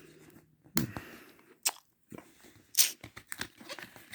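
Plastic CD packaging being handled: a string of sharp clicks and crackles from a jewel case and its wrapping, with three louder snaps about a second apart.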